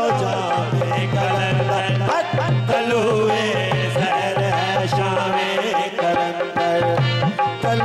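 Instrumental interlude of live Qalandari dhamal devotional music: a steady hand-drum beat with a melody running above it.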